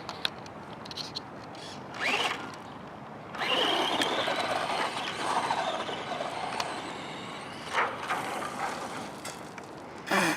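RC truck driving over grass, its motor whining in short bursts about two seconds in and near the end, with a longer, louder run from about three and a half to six and a half seconds in.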